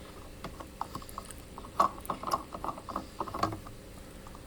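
Faint steady hum of a portable diesel heater running, with a run of light, irregular mechanical clicks and ticks over it, thickest in the middle of the stretch.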